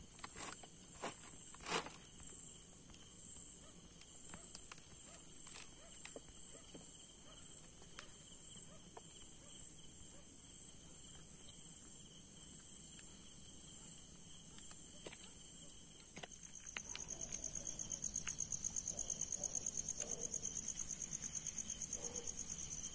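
Night insects, crickets among them, trilling steadily at a high pitch, with a few sharp clicks and knocks in the first two seconds. About two-thirds of the way in, a louder, fast-pulsing insect trill starts up close by and continues.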